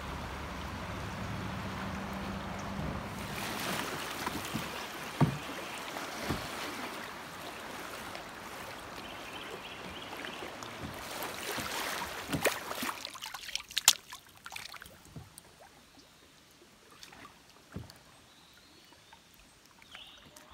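Moving creek water and rushing air around a kayak on a high, muddy stream, with a few sharp knocks. About 13 seconds in it drops to a much quieter wash with scattered small taps and drips.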